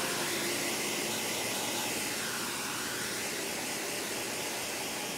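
Handheld hair dryer blowing a steady rush of air while drying a wet puppy's coat after its bath.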